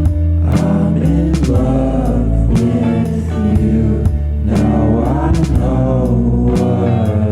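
Background music: a song with a sung vocal line over a steady bass and beat.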